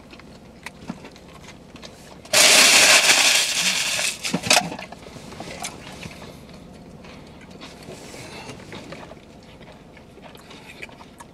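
Eating noises: faint crackles and clicks of chewing and handling food, with a loud burst of rustling, crackling noise lasting about two seconds a little over two seconds in.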